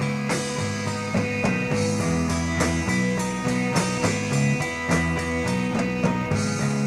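Rock band playing: electric guitar over a drum kit keeping a steady beat, with a bass line stepping between sustained low notes.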